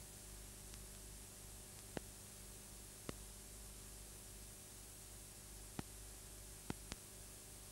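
Near silence: steady recording hiss and mains hum, broken by a handful of short, sharp clicks at irregular intervals.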